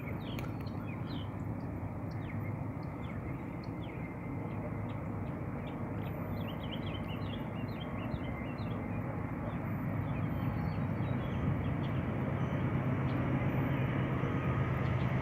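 Low, steady rumble of an approaching Norfolk Southern train's diesel locomotives, growing slowly louder, with songbirds chirping over it through the first half.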